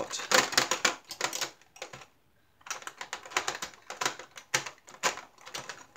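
Small clear plastic diamond-painting bead jars clicking and clattering against each other and the plastic drawer as they are fitted in by hand: quick runs of light clicks, with a short pause about two seconds in.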